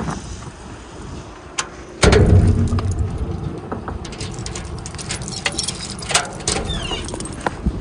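A car's engine idling close by, much louder from about two seconds in, with a string of clicks and knocks over it.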